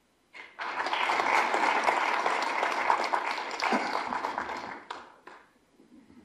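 Audience applauding: a burst of clapping starts about half a second in, holds for about four seconds, then tapers off with a few last claps.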